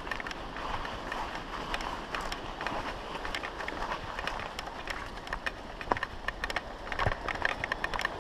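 Mountain bike rattling and clicking over a rough, snowy trail, with irregular knocks and crunches, over a steady rush of water from nearby falls.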